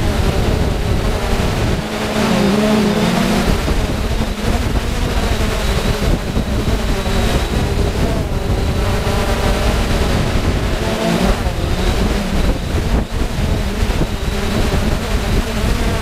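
Multirotor camera drone's motors and propellers buzzing steadily, heard from the drone's own camera, with a whine that shifts in pitch as the motors change speed, under wind noise.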